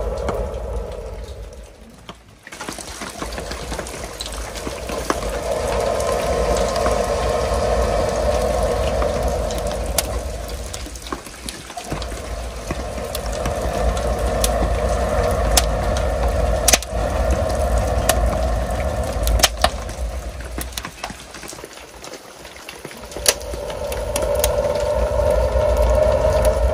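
Air blown through a fire-blowing tube onto the wood fire in a cob pizza oven: long steady rushes broken by short pauses for breath, with the burning wood crackling and popping sharply now and then.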